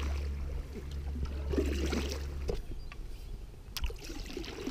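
Water trickling and splashing around an inflatable canoe as it is paddled, with a few sharp knocks. A low steady hum under it cuts off about halfway through.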